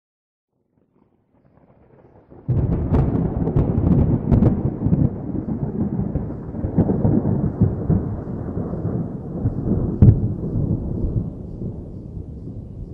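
Thunder-like rumble sound effect. A sudden loud boom about two seconds in rolls on as a long, deep rumble with sharp crackles, with another strong crack near the ten-second mark, then slowly fades near the end.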